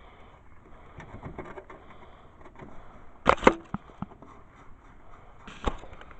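Metal-on-metal clanks from hand tools and bolts while the engine is bolted down to the mower deck: one sharp clank with a brief ring about three seconds in, a smaller knock near the end, and light handling clicks between.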